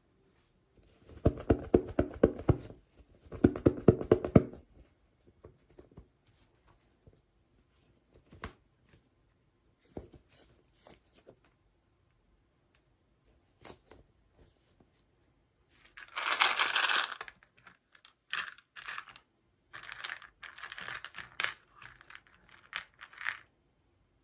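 Packaging of miniature toys being torn open and crinkled by hand. There are two short bursts of rapid ripping clicks near the start and scattered small clicks. About two-thirds of the way in comes a louder tearing burst, followed by several more bursts of crinkling.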